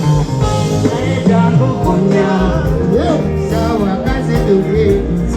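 Amplified music from a live sound check: a backing track with a steady bass line, and a male voice singing over it through the stage PA.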